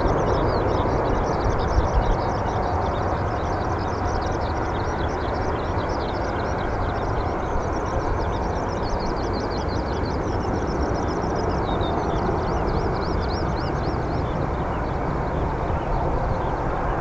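Boeing 777-200 airliner's jet engines at climb thrust just after takeoff: a steady, loud rumbling roar as the plane climbs away.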